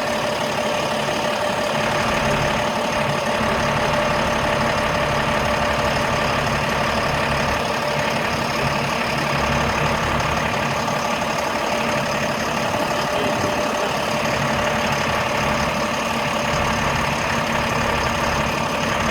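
Heavy vehicle engine running steadily at an even pitch, with a constant whine over a low rumble.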